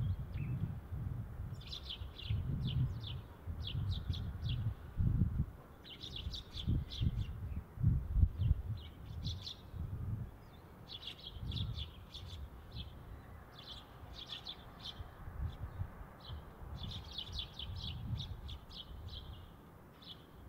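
A flock of Eurasian tree sparrows chirping, with quick runs of short, high chirps every second or two. Bursts of low rumble sit underneath and make the loudest moments.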